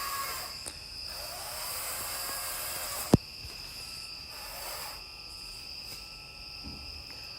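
Wild Badger cordless chainsaw's electric motor whining up and back down in short trigger pulls while trimming small branches, with one sharp click about three seconds in. Insects chirp steadily throughout.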